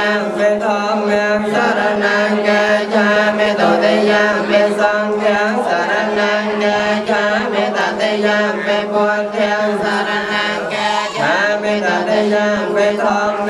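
Buddhist monks chanting together, the lead monk's voice amplified through a microphone. The recitation runs on without a break, held on a steady pitch.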